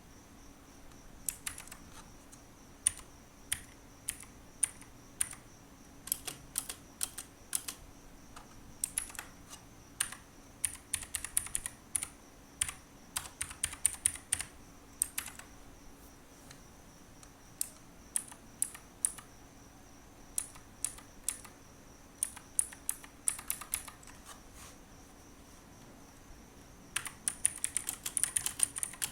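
Ruyiniao K26 mechanical keyboard with clicky blue switches, keys pressed one at a time and in short quick runs, each press a sharp click; near the end it turns into fast continuous typing.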